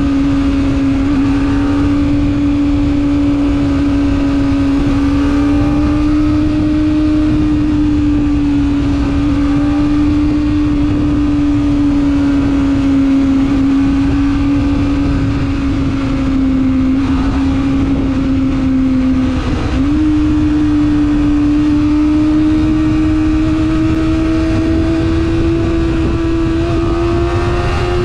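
Kawasaki Ninja ZX-25R's 249 cc inline-four running at high revs under way, its note holding a near-steady pitch. The pitch dips briefly about twenty seconds in, then climbs slowly and drops near the end. A dense low rumble of wind and road noise lies underneath.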